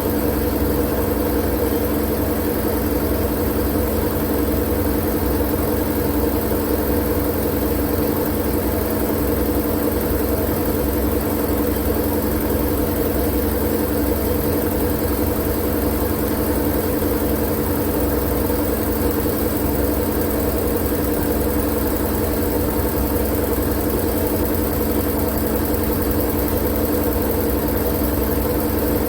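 Steady sleep-aid noise: a constant, even drone with a strong low hum.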